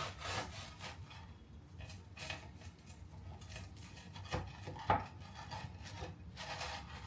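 A kitchen utensil scraping and rubbing against a crusty toasted grilled cheese sandwich, in irregular strokes, with two sharper scrapes about four and five seconds in.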